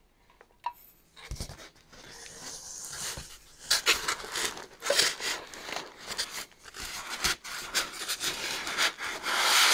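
Plastic packing wrap rustling and styrofoam packing rubbing and creaking as they are handled inside a cardboard box. The handling starts about a second in and goes on in irregular bursts.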